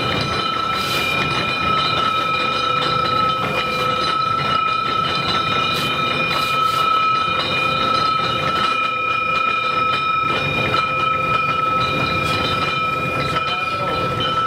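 Steady drone of factory machinery with a constant high whine at several fixed pitches, and a few light knocks.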